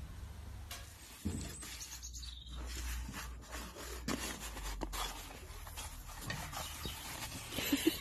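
Brown paper wrapping crinkling and rustling as a dog noses and paws at the package, an uneven run of small crackles.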